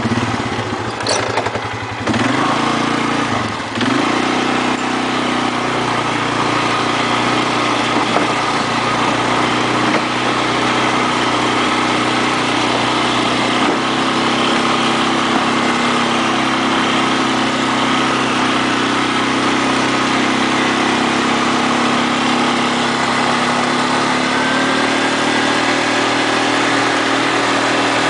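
ATV engine running, its engine speed rising and falling briefly a few seconds in, then holding a steady note.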